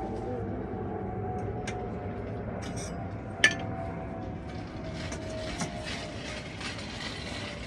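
Honda CB1000R's inline-four engine idling steadily through a Black Widow exhaust, with the 51 mm baffle and silencer fitted. A single sharp click sounds about three and a half seconds in.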